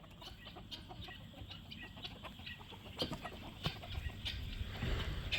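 Chickens clucking faintly, short scattered calls, with a low rumble growing near the end.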